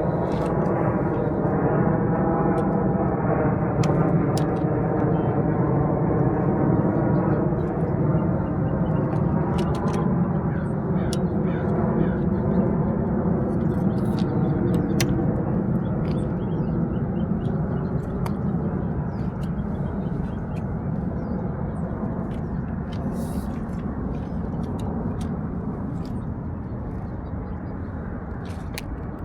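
A steady engine drone whose pitch wavers slowly, fading gradually over the last third, with scattered small clicks and rustles over it.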